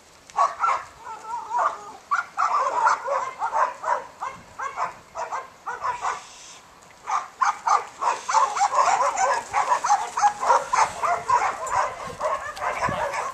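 Young border collie whining and yipping in a quick run of short, wavering calls, with a pause about six seconds in before the calls resume.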